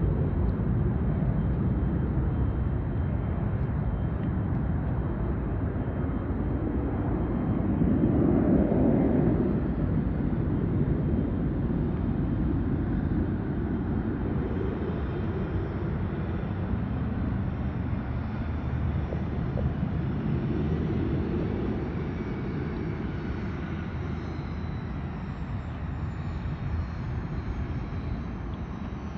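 Distant business jet engines running on the airfield: a steady low rumble that swells about eight seconds in, with a faint high whine that slowly falls in pitch near the end.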